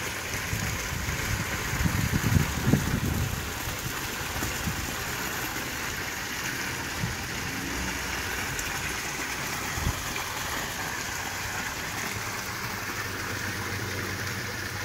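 Water pouring steadily from a stainless steel spillway into a pond: a continuous splashing hiss, with a few low bumps about two to three seconds in.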